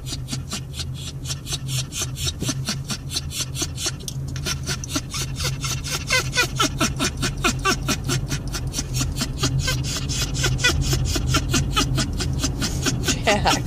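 Dog panting hard and fast, several breaths a second, with short high whines breaking in from about halfway: an anxious dog on a car ride. A steady low car hum runs underneath.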